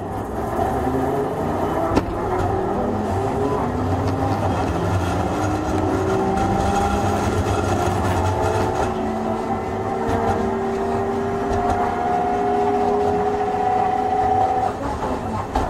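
Hankai Tramway Type 351 tram running under power, its nose-suspended traction motors and gearing giving a deep rumble and a whine that climbs slowly in pitch over several seconds as it accelerates. The whine drops away near the end, and there is a single sharp knock about 2 seconds in.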